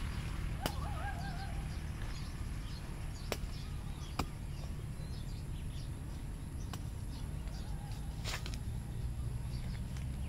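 A small bladed hand tool chopping into dry soil: a few sharp strikes a couple of seconds apart, over a steady low rumble. Birds chirp in the background, with a warbling call about a second in.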